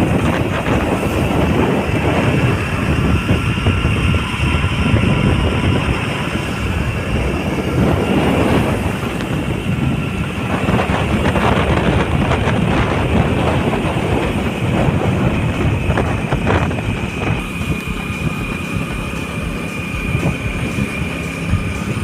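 A road vehicle in motion: steady running and road noise with rattle, and a thin high whine over it.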